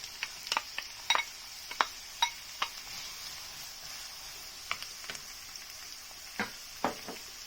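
Diced onion frying in hot oil in a pan: a steady sizzle with frequent sharp pops and crackles, which thin out after about three seconds.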